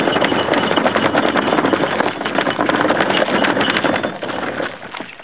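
Plastic wheelie bin being pulled on its two wheels over a gravel driveway: a steady rattling rumble of the wheels rolling on stones, which fades out about four and a half seconds in.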